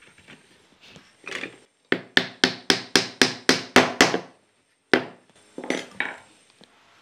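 Wooden mallet tapping wooden lattice bars down into their crossing joints during a dry assembly of a lattice window. It gives a quick, even run of about ten taps, roughly four a second, then a few single taps.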